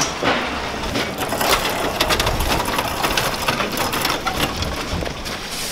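Metal platform trolley loaded with polystyrene foam boards rolling over pavement, its wheels and frame rattling with a rapid run of clicks and knocks.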